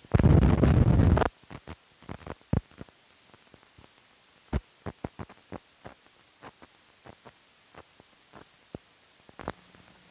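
Film leader running through a projector's optical sound head: a loud buzz lasting just over a second, then scattered sharp clicks and pops from dirt and scratches on the blank soundtrack.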